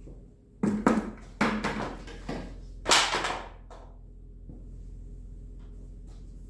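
Objects knocking and clattering as they are picked up and set down while a cluttered shop floor is tidied: a few bursts of knocks in the first half, the loudest about three seconds in.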